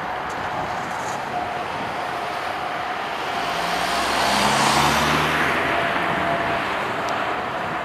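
Distant roar of a Boeing 777 freighter's GE90 jet engines as the aircraft rolls out on the runway after landing, a steady rushing noise with a faint high whine that swells to its loudest about four to five seconds in, then eases.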